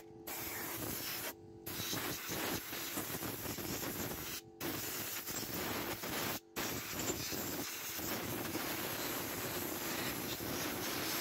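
Compressed-air blow gun hissing as it blows dust out of the inside of a MIG welder, with a few brief breaks where the air stops.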